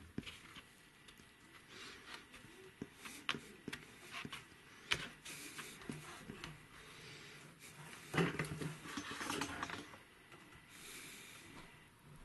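Cardboard pattern pieces being handled and pressed into place in a felt-lined wooden case: scattered light taps, scrapes and rustles, with a louder, longer stretch of rustling about eight seconds in.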